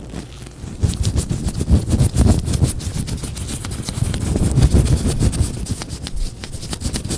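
Latex-gloved hands rubbing and squeezing against each other close to the microphone: dense crackling and rubbing with low thuds, picking up about a second in and staying busy.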